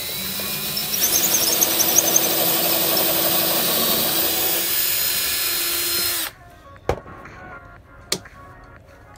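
DeWalt cordless drill boring a hole through clamped pine 2x3 stud, the motor running steadily under load for about six seconds and then stopping suddenly. Two sharp clicks follow as the quick-release bar clamp is handled.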